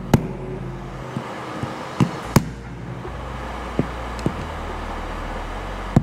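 Sharp, irregular knocks and clicks as a metal tool is worked into a machined PEEK plastic part to snap its holding tabs, over a steady background hum.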